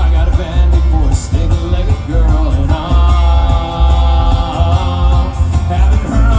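Live bluegrass band playing: banjo, acoustic guitar, mandolin and upright bass, with a heavy bass. A note is held for about two seconds in the middle.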